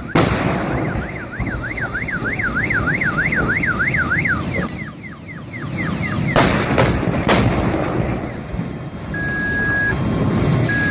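A car alarm warbling: a rapid rising-and-falling siren about three times a second that trails off after about four seconds. Then come three sharp bangs in quick succession and, near the end, steady long beeps, all over a continuous rumbling noise.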